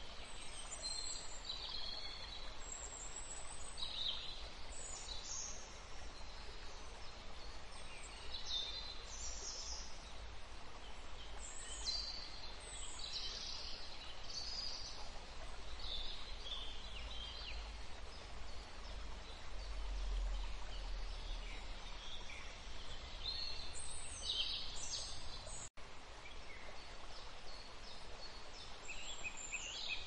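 Small cage birds, canaries and finches, giving short, scattered chirps and calls over a steady background hiss. The sound cuts out for an instant once, near the end.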